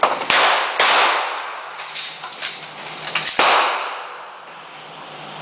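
Handgun shots from several shooters firing one round each after a reload drill: about seven sharp shots scattered irregularly over the first three and a half seconds, each echoing and dying away.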